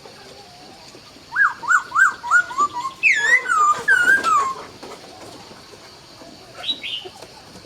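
Laughingthrush (khướu) singing. About a second in comes a run of five quick whistled notes, then a louder phrase of sliding, falling whistles, and one short high note near the end.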